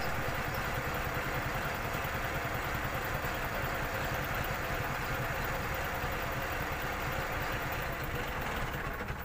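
A vehicle engine running steadily under a broad hiss.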